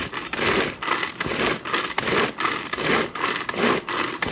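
Tupperware Power Chef pull-string chopper worked in quick repeated pulls, about two a second. Each pull is a short whirr of the cord and the blades spinning through cooked chicken, shredding it.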